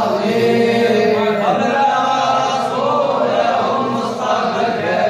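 A group of men chanting together in unison, a devotional Islamic chant of long held notes that bend up and down.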